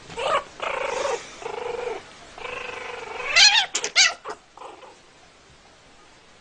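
A young pet's cries during play. First come several drawn-out calls, then a quick run of rising, sharper cries about three to four seconds in, and a few fainter ones after.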